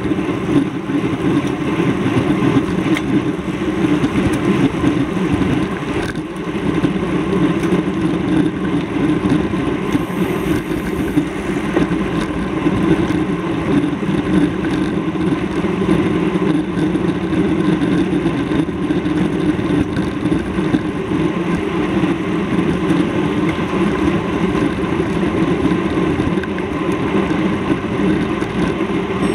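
Steady vehicle noise that runs on without a break or change.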